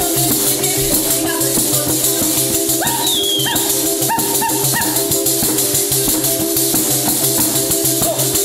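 Sicilian folk ensemble playing live, without singing. Steady drone notes sit under a fast, even shaker rhythm, and short rising melodic notes come in about three to five seconds in.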